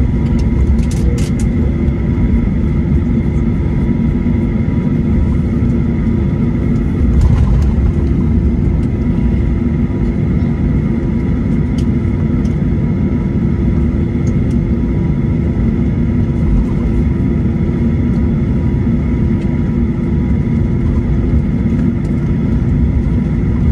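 Boeing 737-800 cabin noise heard from a window seat over the wing as the jet rolls out and slows after landing: the CFM56 engines' steady hum and rumble with a few faint clicks.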